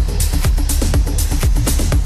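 Electronic dance music with a steady kick drum at about two beats a second and bright hi-hat hits between the beats.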